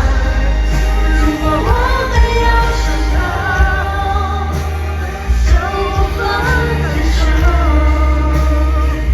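Live pop music at a concert: a female singer's melody over a heavy bass backing, heard from inside a large arena.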